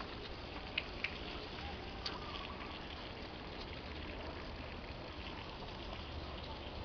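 Steady outdoor background noise, with three short sharp clicks: two close together about a second in and one at about two seconds.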